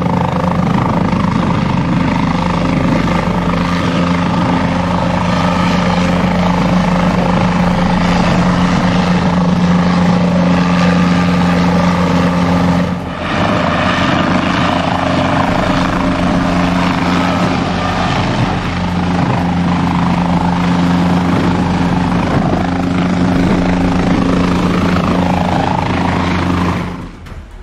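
Guimbal Cabri G2 training helicopter hovering low: a steady rotor and engine drone with a strong low hum. It dips briefly about halfway through.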